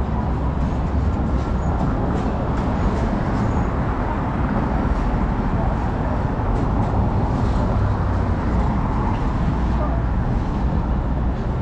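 Steady street traffic noise from vehicles passing on a busy city street, heard while walking alongside it.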